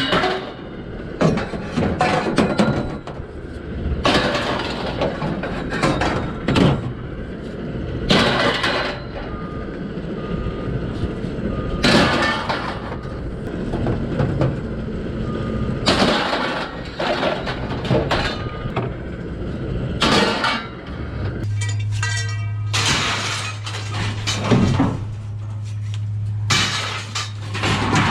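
Pieces of scrap steel being thrown out of a van onto a pile, a run of loud clanks and metallic crashes every second or two. About 21 seconds in, a steady low machine hum starts up under them.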